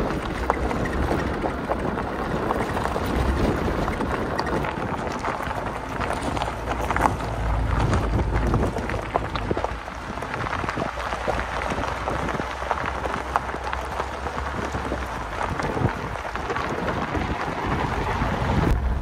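Vehicle driving along a gravel track, with engine rumble, tyres crackling over loose stones and wind buffeting the microphone.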